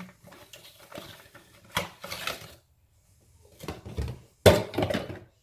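Handling and opening a small product box: scattered clicks, light rustling and knocks, with one sharp knock about four and a half seconds in.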